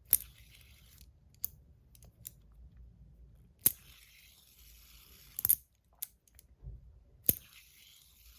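KTS Blood Blade fidget spinner being flicked and handled: sharp metallic clicks and clinks about seven times, with a faint high whir of the spinning bearing in the stretches between some clicks.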